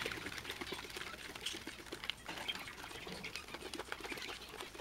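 Can of Great Stuff Gaps & Cracks spray foam being shaken hard by hand, giving a run of quick, irregular clicks and rattles.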